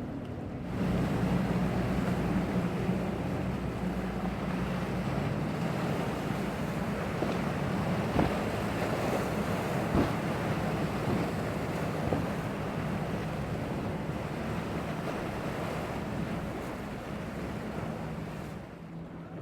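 Rushing wind on the microphone and surf noise over the steady drone of a small boat's outboard motor. There are a few brief knocks partway through. The rush eases near the end, leaving the motor drone clearer.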